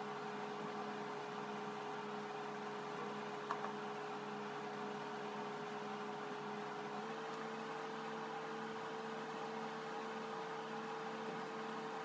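Steady machine hum with a hiss, like a fan or appliance running, with a faint regular throb underneath. A steady tone in it shifts slightly higher about seven seconds in, and there is one faint click about three and a half seconds in.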